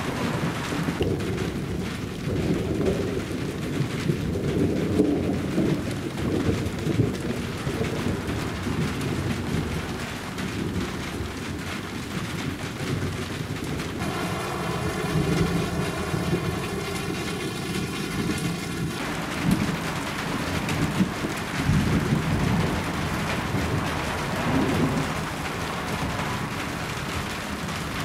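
Continuous rolling thunder from a supercell thunderstorm, its deep rumbles swelling and fading every few seconds over a steady hiss.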